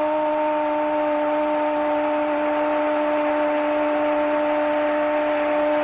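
Sports commentator's drawn-out "gol" cry, one long note held steady at the same pitch throughout, celebrating a goal, over a steady haze of background noise.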